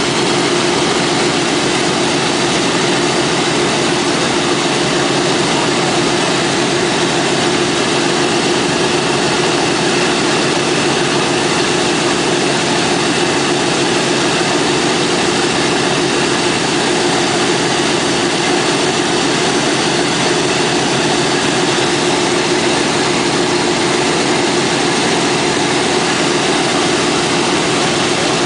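B-17's Wright R-1820 Cyclone nine-cylinder radial engines idling steadily, propellers turning, at an even, unchanging level.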